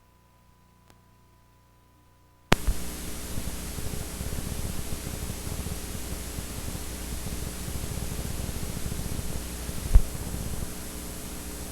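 VHS tape playback static: near silence, then about two and a half seconds in a click and a sudden steady hiss with a low hum under it. A low thump comes near the end.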